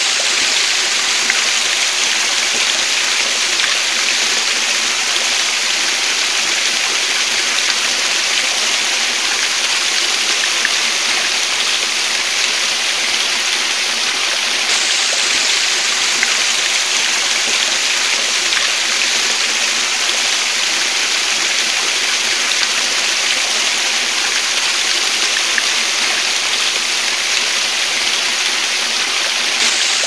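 Waterfall pouring into a pool: a steady, bright rush of falling water with little low rumble, unchanging throughout.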